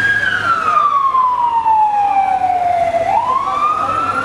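Ambulance siren wailing: one slow downward sweep in pitch lasting about three seconds, then a quick rise back up near the end.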